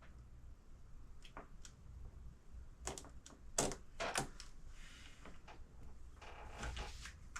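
Light clicks and taps of small RC parts and hardware being handled while a servo is fitted, the sharpest few coming about three to four seconds in, over a faint low hum.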